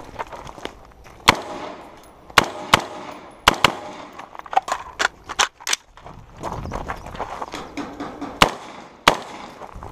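A string of about ten rifle shots at irregular intervals, some fired in quick pairs, each a sharp crack with a short echo after it.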